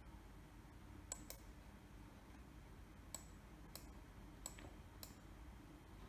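Faint clicks of a computer mouse button, about six at uneven intervals, two of them close together like a double-click.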